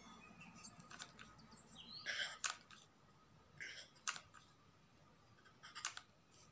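Quiet handling of craft materials over a woven wire basket: two short rustles and three small sharp clicks, as a hot glue gun is worked and a mirror is pressed into place.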